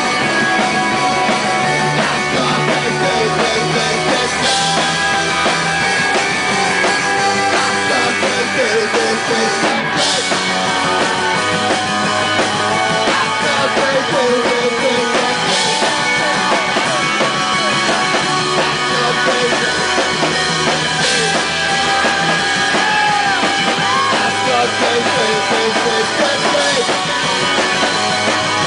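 Live rock band playing loud: electric guitars, bass and drum kit, with a cymbal crash about every five to six seconds.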